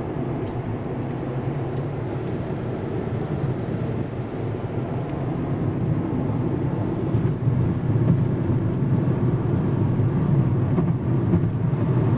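A vehicle on the move: steady low road and engine rumble that gets somewhat louder about halfway through.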